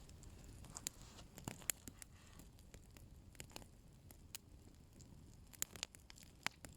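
Small bonfire crackling faintly, with sharp, irregular pops and snaps.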